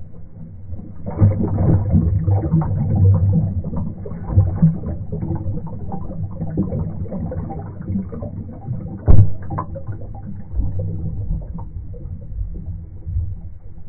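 Muffled underwater turbulence heard through a submerged camera: rushing bubbles and water movement with dense crackling and low thumps, and one sharp knock about nine seconds in.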